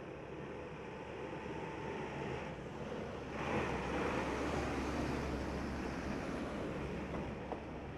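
A heavy goods truck driving past at close range: a steady diesel engine rumble with tyre and road noise that swells about three seconds in as the truck passes, then eases off. A single short tick near the end.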